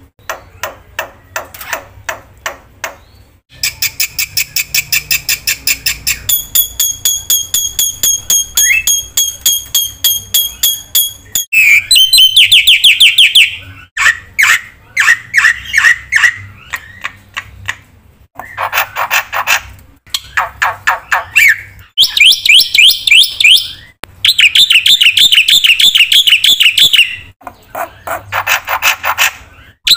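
Black-winged myna (jalak putih) singing loudly in a varied sequence of phrases: rapid repeated chirps, buzzy trills and clear whistled notes. Each phrase runs a few seconds before breaking off abruptly into a different one.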